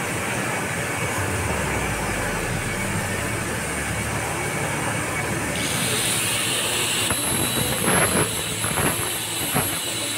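Electric angle grinder with a thin cutting disc running. About eight seconds in it bites into a steel pipe, and the steady whine turns rough and uneven as it cuts.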